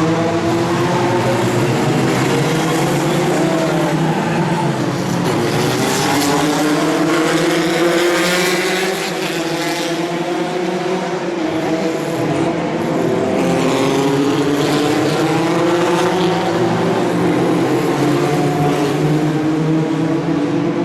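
Historic 1975–1978 Formula 1 cars at racing speed, several engines overlapping, their pitch rising and falling as they accelerate, change gear and brake.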